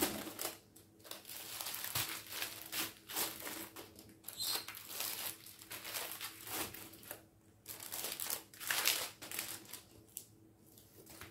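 Paper cross-stitch charts rustling and crinkling as they are handled, in short irregular rustles.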